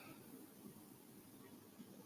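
Near silence: faint, steady low room noise during a pause in a sleeping woman's snoring.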